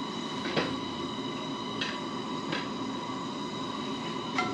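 Propane camp stove burner running under a cast-iron skillet: a steady rushing hiss, with a few light clicks over it, the last near the end.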